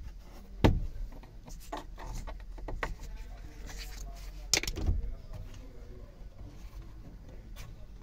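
A flat-head screwdriver prying at the plastic dashboard trim of a Nissan Urvan NV350, making scattered clicks and light knocks. The loudest knocks come about half a second in and again about four and a half seconds in.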